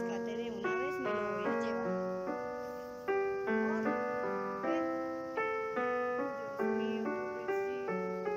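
Background solo piano music: a slow tune, with a new note or chord about every half second.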